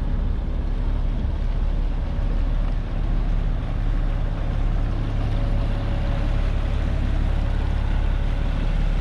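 Fishing boat's engine running steadily, a low even rumble.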